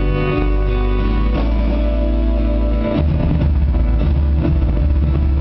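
Live band playing an instrumental, with keyboards, guitars, piano and saxophone sounding sustained chords that change every second or two.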